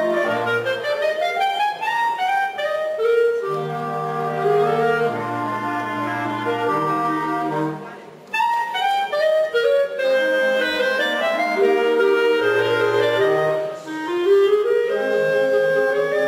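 A chamber quintet playing live, wind instruments to the fore, with running melodic lines over a stepping bass line. The music pauses briefly about eight seconds in, then goes on.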